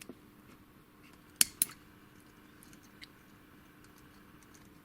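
Circlip pliers working at a tight retaining ring on a padlock's plug: two sharp metal clicks about a second and a half in, a fifth of a second apart, with a few fainter ticks over a faint steady hum.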